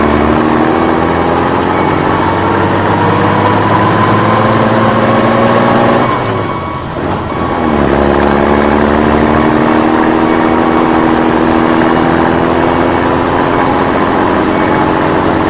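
A vehicle engine revving up, its pitch climbing slowly for about six seconds, dropping away briefly, then climbing again for the rest of the stretch, like a truck pulling away and shifting up.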